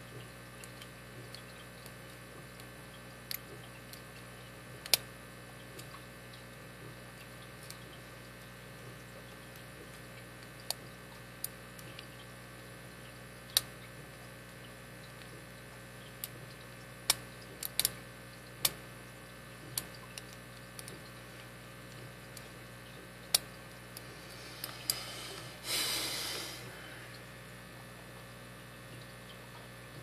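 Pick and tension wrench working the pin tumblers of a Master Lock 4160 V-line brass padlock: scattered, irregular sharp metallic clicks over a steady hum. A brief rustle about 26 seconds in.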